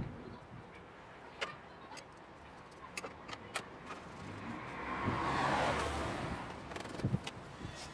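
A vehicle passes by, its noise swelling and fading over about two seconds in the middle. Scattered light clicks and knocks come from parts and tools being handled at the engine bay.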